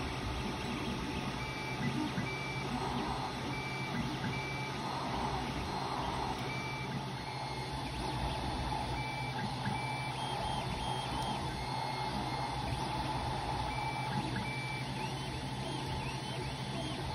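Ender 3 Pro 3D printer running a print: a steady hum of its cooling fans, with the stepper motors giving off short high beep-like tones, often in pairs, as the print head moves.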